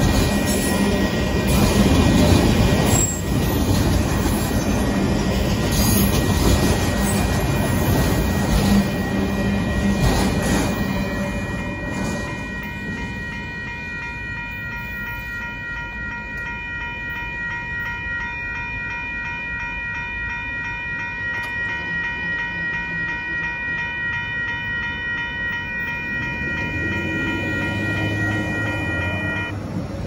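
Autorack cars of a Union Pacific auto train rolling through a grade crossing with a loud steady rumble that dies away about 11 seconds in as the train clears. The crossing's warning bell then rings on its own in a fast, even pattern and stops just before the end as the gates go up. A vehicle engine rumbles low near the end.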